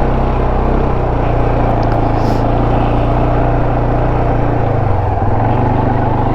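CFMoto ATV engine running steadily while being ridden, settling to a slightly lower pitch about five seconds in as the throttle eases.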